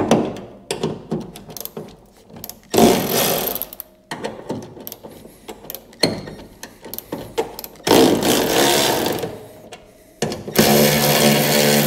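Cordless electric ratchet running in about four short bursts on a car's hood hinge bolt, the last and longest starting about ten and a half seconds in, with clicks of the tool and bolt between bursts.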